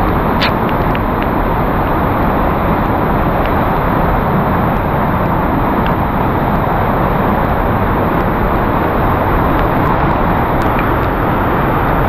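Steady rushing of a mountain stream running high and fast after heavy rain, a constant torrent of water over rocks, with a few faint short high ticks on top.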